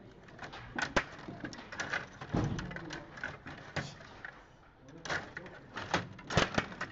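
Stiga Play Off table hockey game in play: a quick, irregular run of sharp plastic clicks and clacks from the rod-driven players, puck and rink, with the loudest knocks about a second in and again near the end.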